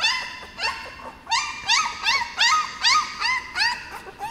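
Seventeen-day-old Border Collie puppies whimpering: a run of short, high-pitched squeals, each rising and falling, about two or three a second.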